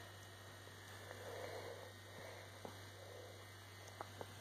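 Near silence: a steady low hum, with faint soft rustles and a few light clicks.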